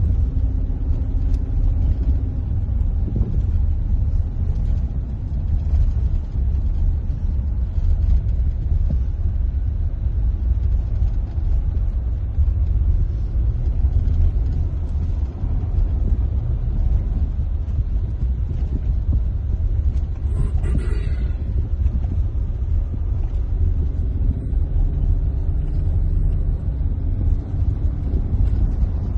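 Steady low rumble of a car driving, heard from inside the cabin: road and engine noise with no break. A brief higher rustle or rattle comes about two-thirds of the way through.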